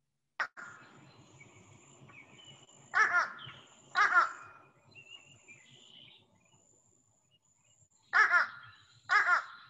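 Fish crow giving its short nasal 'nuh-uh' call: four calls in two pairs, each pair about a second apart, over faint outdoor background hiss.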